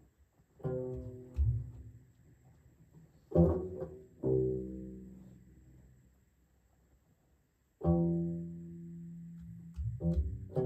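Long-necked lute plucked slowly: low notes and chords struck one at a time, each left to ring and fade, with pauses between them and a quicker run of plucks near the end.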